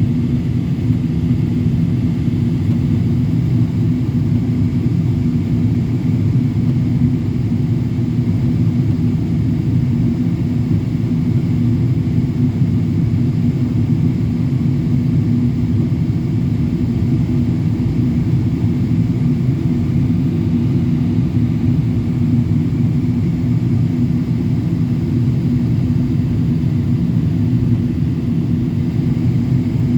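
Boeing 777-200LR airliner in flight, its GE90 engines and the airflow making a steady, unchanging low drone with a constant hum, as heard from inside the cabin.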